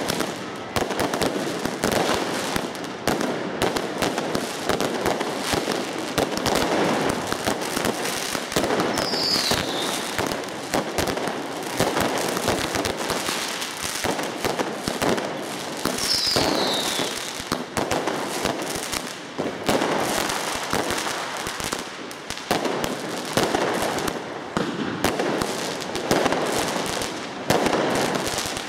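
Many fireworks going off at once: a dense, continuous run of crackling and popping bangs from rockets and crackling stars. A short falling whistle sounds twice, about ten and seventeen seconds in.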